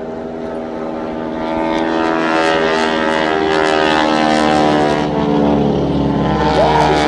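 Radial-engined Boeing Stearman wingwalking biplanes flying a crossing pass. Their propeller drone builds up over the first few seconds and dips a little in pitch as they go by.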